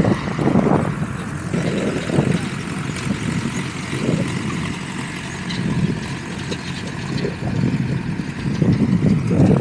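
Wind buffeting the microphone in irregular low rumbling gusts, over a steady outdoor hiss.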